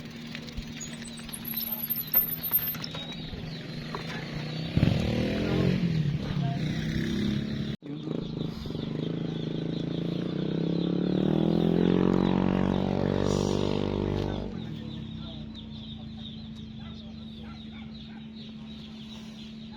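A motor running steadily throughout, with a louder engine from about five seconds in that rises in pitch, holds, and fades away after about fourteen seconds. A bird chirps briefly near the start.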